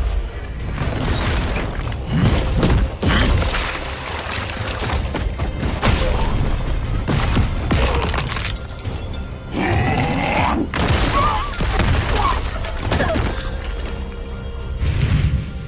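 Animated fight-scene sound effects over a dramatic music score: repeated booms, heavy impacts and shattering crashes as crystalline energy blasts break against rock.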